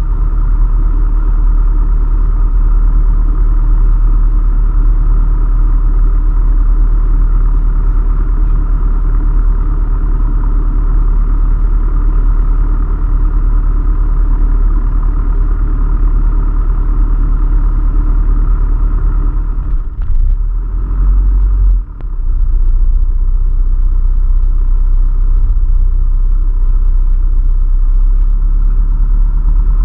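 Light aircraft's piston engine and propeller running steadily, heard from inside the cockpit while taxiing. The sound dips briefly about twenty seconds in, then returns to the same steady drone.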